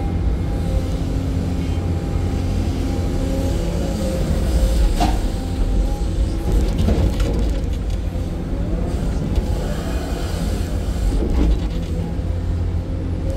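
Excavator's diesel engine running steadily with a deep rumble, its note wavering under load in the middle, and a sharp knock about five seconds in.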